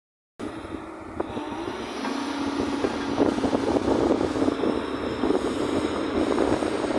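Excavator engine running steadily, getting louder over the first few seconds.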